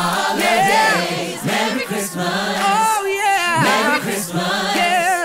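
Christmas pop song: a singer's vocal runs with heavy vibrato over a choir of backing voices.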